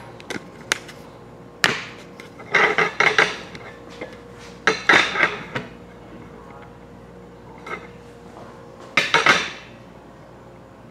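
Hard knocks and clattering in about six irregular bursts, a steady faint hum underneath.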